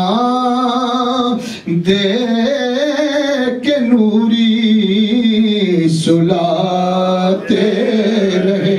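A man sings an Urdu devotional salam solo and unaccompanied into a microphone. He holds long notes that bend and waver, with a short breath break about one and a half seconds in.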